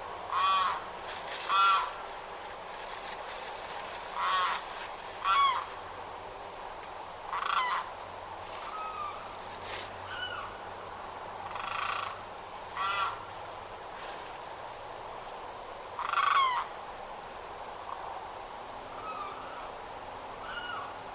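Limpkin calling repeatedly: about nine loud calls, each under a second long, come every one to three seconds, with a few fainter calls between them.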